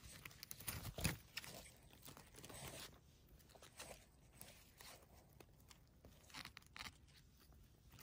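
Faint close-up crackling and rustling of moss, dry pine needles and twigs as a hand picks mushrooms from the forest floor. A sharper crunch comes about a second in.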